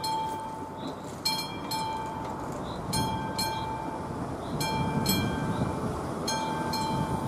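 Level-crossing warning bell of an AŽD 71 crossing signal, a classic electric bell, ringing in short bursts about every one and a half seconds. A low rumble of an approaching train builds from about three seconds in.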